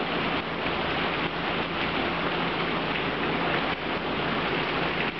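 Heavy rain pouring steadily, splattering on wet ground.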